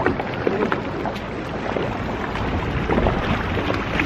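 A boat under way at low speed: the steady running of its twin 50 hp Suzuki outboards and water washing past the hull, with wind buffeting the microphone.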